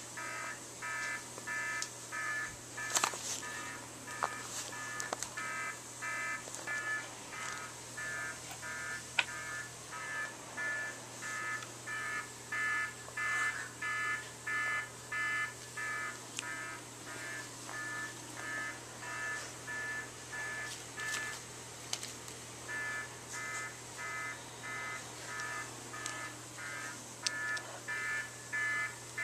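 Electronic alarm clock beeping, about two short multi-tone beeps a second. It breaks off for a moment about three-quarters of the way through, then starts again.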